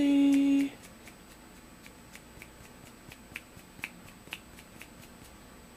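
Fingers snapping in a quick run of sharp, light snaps, about three or four a second, stopping about five seconds in: a person snapping to catch a cat's attention.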